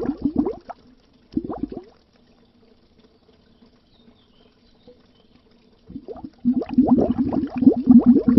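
Air bubbles rising under water, a dense run of quick gurgling blips. It stops about half a second in, gives a short burst, falls almost silent for about four seconds, and bubbles again from about six seconds in.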